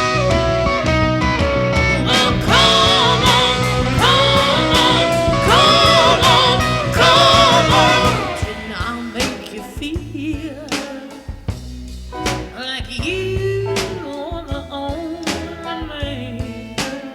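Background music: a blues-rock style song with guitar, drums and singing, which becomes sparser about eight seconds in.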